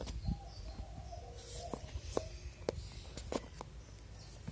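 Cardboard phone box being handled and opened: a series of sharp clicks and taps, with a brief rustle of packaging about one and a half seconds in.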